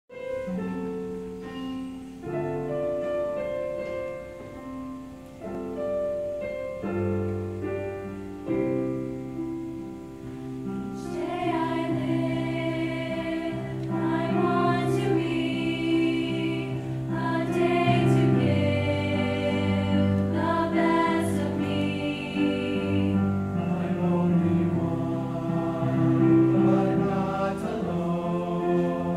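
Mixed choir of men and women singing in held chords. About eleven seconds in, higher voices come in and the singing grows louder.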